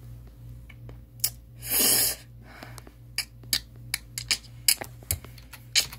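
Keys being tapped to type a chat message: sharp single clicks at uneven spacing, coming faster towards the end, with one louder short rush of noise about two seconds in, over a steady low hum.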